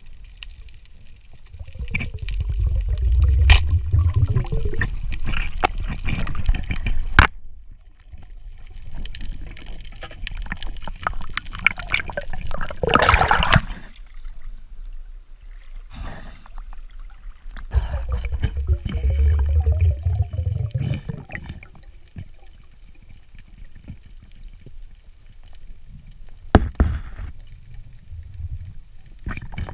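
Water rushing and gurgling around a spearfisher's camera as he swims underwater, with a few sharp knocks. About thirteen seconds in there is a louder splash as the camera breaks the surface.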